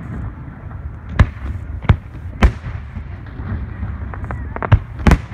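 Aerial fireworks exploding: three sharp bangs about a second apart, then a run of quicker, lighter pops, and the loudest bang near the end, over a steady low rumble.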